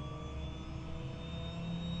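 Helicopter engine starting up, its whine rising steadily in pitch over a low rumble as the main rotor begins to turn.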